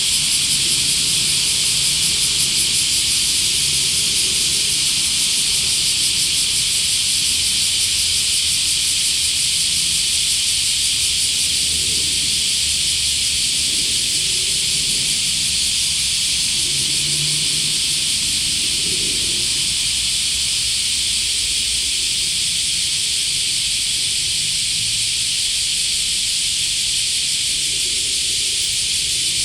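Dense, steady chorus of cicadas: a loud, unbroken high-pitched hiss, over a faint low rumble.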